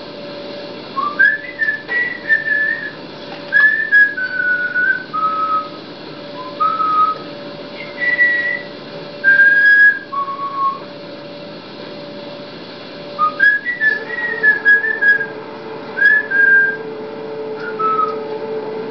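A person whistling a slow tune in two phrases of held single notes that fall by steps, the second phrase starting about thirteen seconds in, over a steady low hum.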